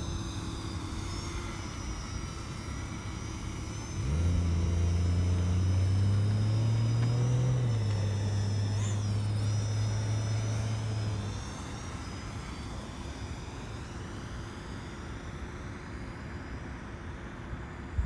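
A low engine hum from a motor vehicle that comes in suddenly about four seconds in, steps down in pitch about halfway through and fades out a few seconds later, over a steady outdoor background with a faint high wavering whine.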